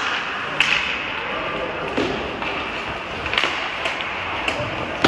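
Ice hockey play on a rink: a handful of sharp clacks of sticks and puck over a steady background noise of skating.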